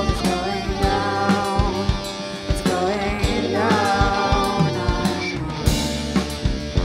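Rock band playing: drum kit keeping a steady beat under guitar and other pitched parts that hold and bend notes.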